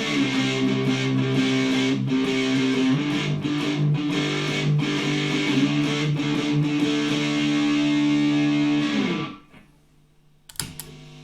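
Electric guitar played through a Boss DS-1 distortion pedal: distorted chords picked and left ringing, dying away about nine seconds in. After a short gap comes a sharp pick attack and quieter notes near the end.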